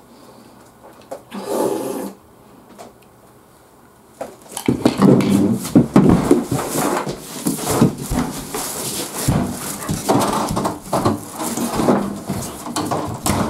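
A short slurp from the bowl about a second in. From about five seconds in comes a loud run of knocks, thuds and rustling clothing with footsteps as a man gets up and walks away.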